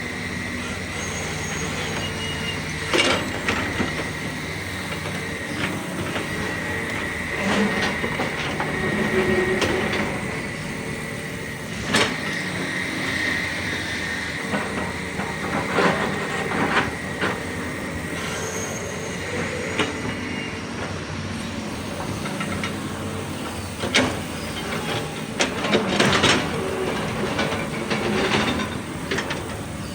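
Hydraulic excavators digging in a quarry: the diesel engine runs steadily with a high steady whine, and sharp metal clanks from the bucket and tracks on rock come several times, the loudest near the middle and toward the end.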